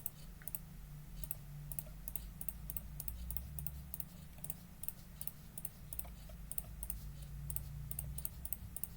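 Light, irregular clicking at a computer, about two or three clicks a second, over a faint steady low hum.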